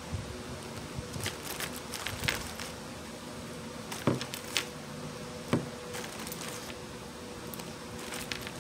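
Light, irregular clicks and plastic-bag rustling as .22 Long Rifle cartridges are taken from a zip bag and pushed one at a time into the nine-shot cylinder of a Taurus Tracker revolver.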